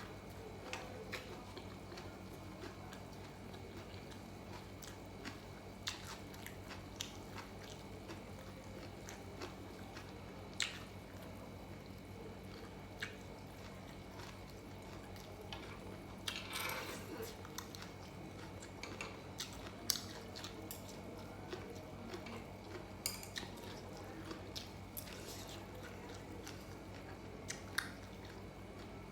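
A person eating Korean grilled pork belly: close-up chewing and biting with many small scattered clicks and smacks. There is a louder crunchy stretch about halfway through, and a faint steady hum underneath.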